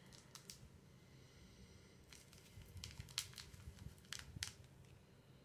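Faint crinkling and rustling of paper packaging being handled, in short scattered bursts, most of them in the second half.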